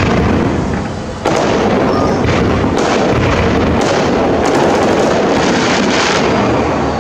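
Aerial fireworks going off: a sudden bang at the start and another about a second in, followed by a dense, continuous run of bangs and pops that eases off near the end.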